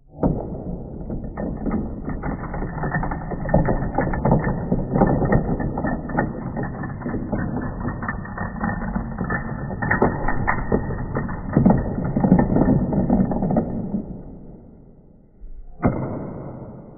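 Dominoes toppling one after another in a long chain on a wooden floor, played back slowed down, so the clatter is a deep, drawn-out rattle of overlapping knocks. It dies away near the end, followed by a single last knock.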